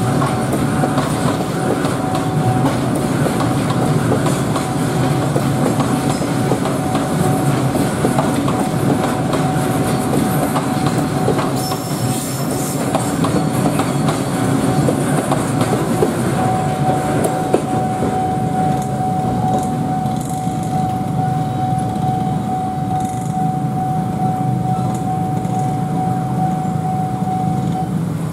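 Container freight train's flatcars rolling past on the rails: a steady rumble with wheels clicking over the rail joints. A steady high tone sounds over it for the first couple of seconds and again through the second half, stopping shortly before the end.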